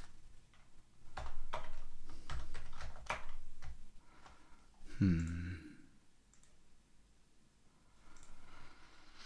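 Computer keyboard typing: a quick run of key clicks in the first few seconds, then a short low voiced grunt about five seconds in.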